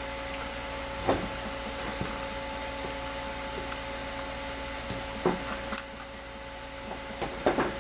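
Small clicks and rubs of test-lead clips and the plastic LED bulb base being handled: one about a second in, one near five seconds, and a cluster near the end, over a steady background hum with a faint whine.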